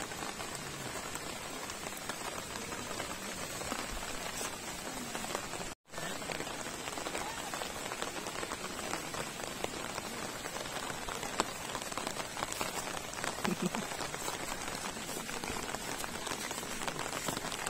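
Monsoon rain falling steadily, a dense patter of drops. The sound cuts out for an instant about six seconds in.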